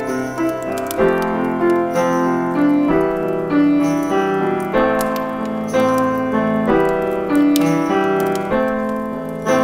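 Piano music: gentle chords struck about once a second, each ringing on and fading before the next.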